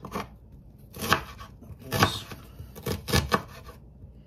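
Chef's knife chopping an onion on a wooden cutting board: about six separate cuts, each a sharp knock of the blade on the board, roughly one a second, with three quick cuts close together a little after three seconds in.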